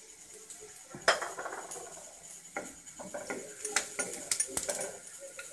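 Spatula stirring cumin and fenugreek seeds in hot oil in a non-stick kadhai: scattered clicks, taps and scrapes against the pan, with a sharp clink about a second in and a busier run of clicks past the middle.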